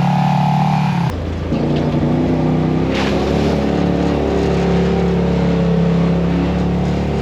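Polaris RZR side-by-side engine running under throttle while the machine crawls a rocky trail climb. Its note shifts abruptly about a second in, then holds fairly steady.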